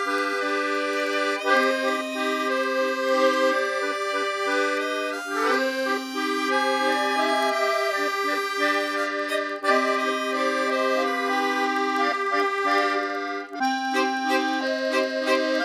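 Background music: an instrumental tune of held chords that change every second or two, with a brief break about three-quarters of the way through.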